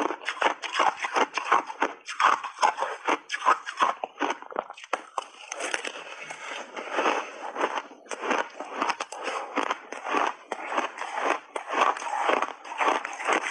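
Shaved ice coated in powder being bitten and chewed close to the microphone: a dense, rapid, irregular crunching and crackling of ice breaking between the teeth.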